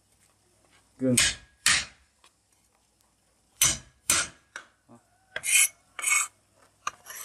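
A cleaver chopping fresh ginger on a plastic cutting board: a string of uneven, sharp knocks of the blade against the board, about ten in all.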